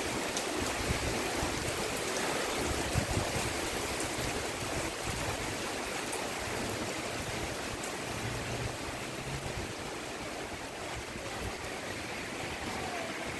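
Heavy rain falling steadily, with wind gusting over the microphone.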